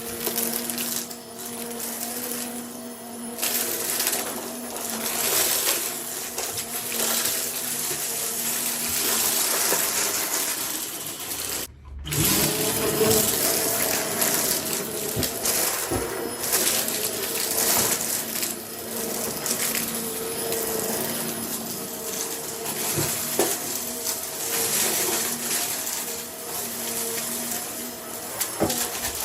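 Vacuum cleaner running with a steady motor hum and airflow hiss that swells and eases as it is worked back and forth. The sound cuts out for a split second near the middle, then carries on.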